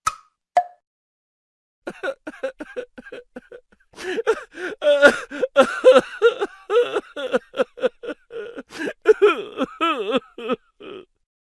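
Two short hollow pops at the very start. After a second of silence comes a high-pitched voice laughing in quick short runs that bend up and down in pitch, a stock laughter sound effect.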